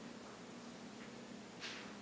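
Faint room tone: a steady hiss and a low hum, with one brief soft rustle a little past the middle.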